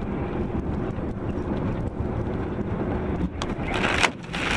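Steady drone of a vehicle's engine and tyres on a wet road, heard from inside the cab. Near the end come two sudden rushes of spray as slush and road grime are thrown against the windshield.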